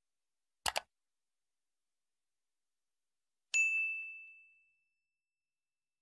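A quick double mouse-click, then about three seconds later a single bright bell ding that rings out and fades over about a second and a half. These are the click-and-chime sound effects of an animated subscribe button and notification bell.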